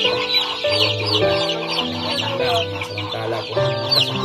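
A flock of young chickens peeping continuously: many rapid, short, high cheeps overlapping, over background music with held low notes.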